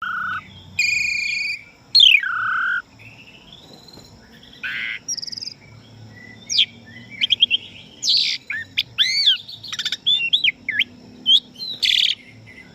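Pied starling (jalak suren) singing in full, varied song: a quick string of loud whistles, swooping rising and falling notes, and buzzy, chattering phrases with short gaps between them.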